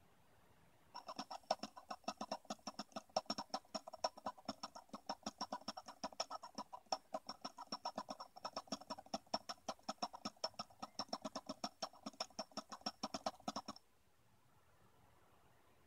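Small brushless DC motor spinning a plastic typewriter daisy wheel, giving a rapid, even clicking of roughly ten clicks a second. The clicking starts about a second in and cuts off suddenly near the end as the wheel stops.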